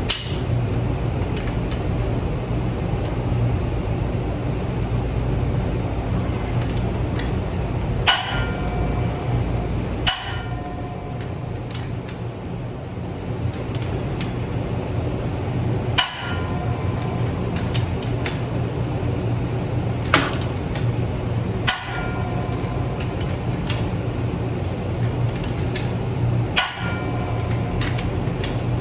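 Click-type torque wrench going up to 250 ft-lb on large engine bolts, giving a sharp metallic click with a brief ring each time a bolt reaches torque, about seven times a few seconds apart, with fainter ratcheting ticks between. A steady low hum runs underneath.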